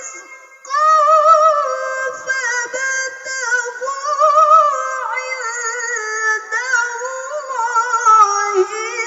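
A woman reciting the Qur'an in melodic tilawah style: after a short breath she sings one long, ornamented phrase with a wavering pitch that sinks lower toward the end.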